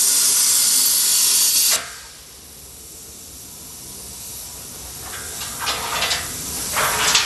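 Plasma cutter arc hissing loudly and steadily, then cutting off abruptly about two seconds in. A quieter steady air hiss continues, with a few short louder hissing bursts near the end.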